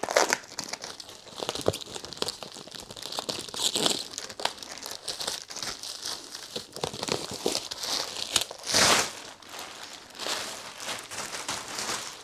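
Packaging wrap crumpling, crackling and tearing as it is pulled off a new Shinko E270 whitewall motorcycle tyre, in a run of irregular rustles and crackles with a louder, longer rip about nine seconds in.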